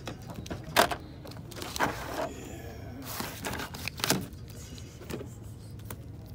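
Shrink-wrapped vinyl LP sleeves flipped through by hand in a record bin: about five short plastic swishes and slaps as each batch of sleeves falls forward. A low steady hum sits underneath.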